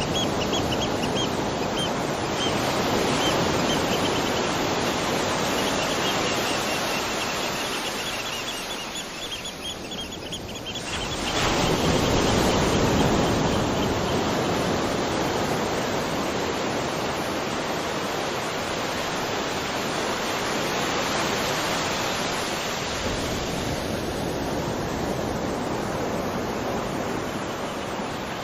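Waterfall: steady rushing of falling water, easing slightly about nine seconds in and swelling back a second or two later. Faint rows of rapid high chirps sit over the rush in the first ten seconds.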